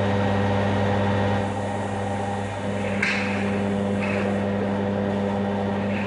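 Steady electric hum of a running machine, with one sharp click about three seconds in.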